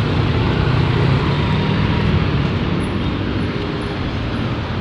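Steady road traffic noise, with the low hum of a vehicle engine running close by that is strongest in the first half.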